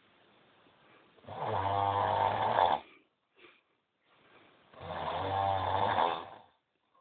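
Snoring: two long snores about three seconds apart, each a steady low-pitched buzz lasting about a second and a half, with fainter breathing before each.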